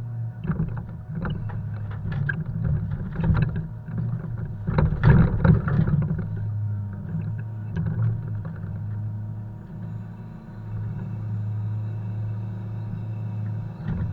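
Truck diesel engine running at a steady speed with a constant hum, while irregular knocks and clunks come through as poplar logs are unloaded, the heaviest cluster about five seconds in.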